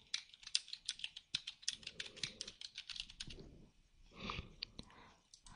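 Typing on a computer keyboard: a quick run of key presses for about three and a half seconds, then a few more keystrokes near the end.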